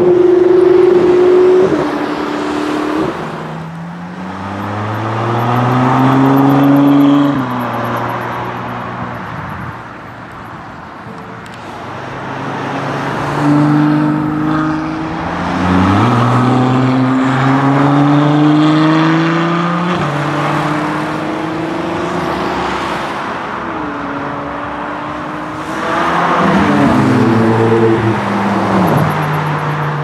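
Several Ferrari supercars accelerating hard as they pass one after another. Each engine climbs in pitch through the gears with quick upshifts, and near the end one car goes by with a falling pitch. About halfway through, the car is an 812 Superfast with its V12.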